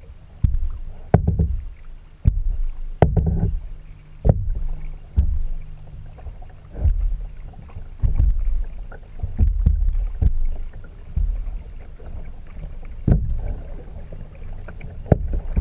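Kayak paddling: sharp knocks about once a second from the paddle and hull, over a low rumble of wind on the microphone.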